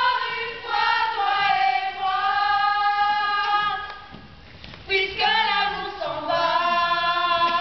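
Voices singing together without accompaniment in long held notes, breaking off about four seconds in and then holding another note.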